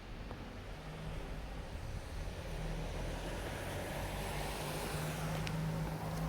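A road vehicle approaching, its engine hum and tyre noise growing gradually louder.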